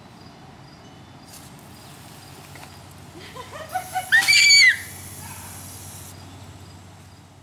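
A toddler squeals with delight: a quick run of short rising cries that climbs to a loud, high-pitched shriek about four seconds in, while the garden hose spray nozzle hisses.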